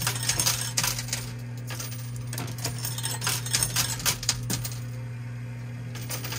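Quarters dropping into a coin pusher machine and clinking onto the sliding shelf and the coin pile, in quick irregular clusters over a steady low hum. The clinking thins out near the end.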